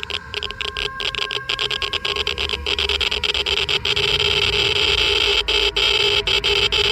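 Geiger counter clicking rapidly and irregularly, each click a detected ionizing particle, over a steady electronic hum and a low rumble that swell louder over the first few seconds.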